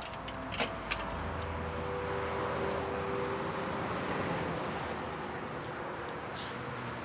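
Steady noise of road traffic from cars passing on a busy street, with a few sharp clicks in the first second.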